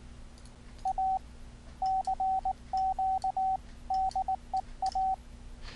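Morse code sidetone from the ehoCW software keyer: a single steady-pitched beep keyed into dits and dahs, sent in about five short groups. Faint clicks are heard alongside.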